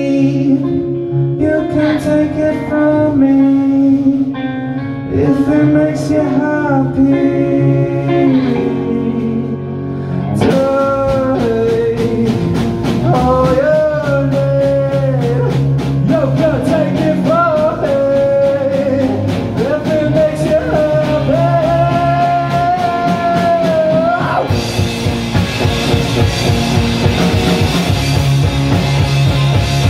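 Live rock band playing: electric guitar with a male singer, the drum kit coming in about ten seconds in. Near the end the singing stops and the band plays on, fuller, with a wash of cymbals.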